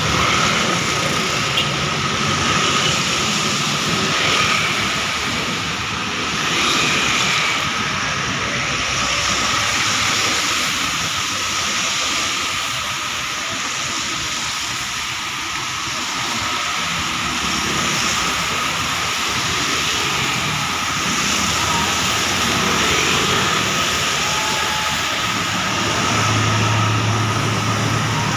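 Dense road traffic (motorcycles, cars and trucks) passing on a wet road, the hiss of tyres on water swelling and easing as each vehicle goes by. Near the end a low engine hum comes up as a coach passes close.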